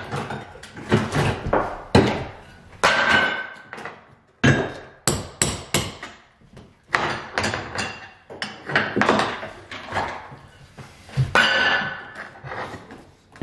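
Pry bar and hammer knocking and scraping at tile around a bathtub deck, working it loose: irregular metal-on-tile strikes, some sharper than others, with scraping in between.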